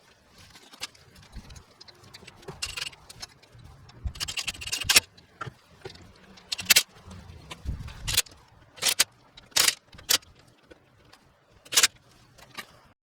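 Hand tools and metal brake parts clinking and knocking together as a brake caliper is refitted and its bolts screwed in: irregular sharp metallic clinks and jangles, about a dozen strong ones, mostly in the second half.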